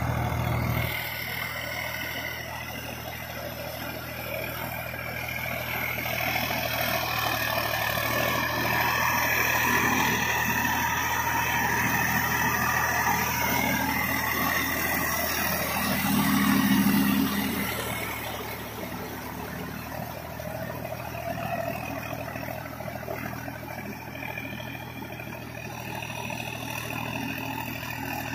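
Solis 5015 E 4WD tractor's diesel engine running under load as it drags a rotovator through a flooded paddy, puddling the mud. It grows louder as the tractor passes close, about halfway through, then fades as it moves away.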